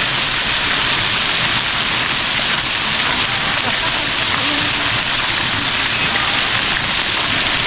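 Artificial waterfall pouring down close by: a loud, steady rushing hiss of falling water.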